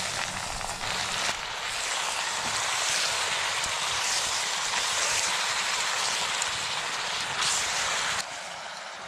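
Beef sizzling as it is stir-fried in hot oil in a pressure-cooker pot over a camping gas stove: a steady loud hiss that drops away suddenly about eight seconds in.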